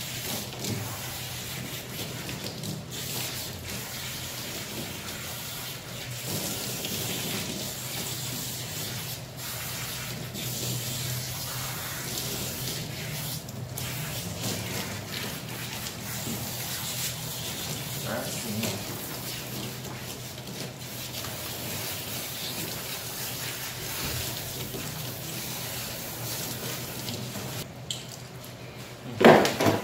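Handheld shower sprayer running steadily, its water hissing onto a soapy Siberian husky's coat and a stainless steel tub as the shampoo is rinsed off. The spray eases off shortly before the end, followed by a single sudden loud knock.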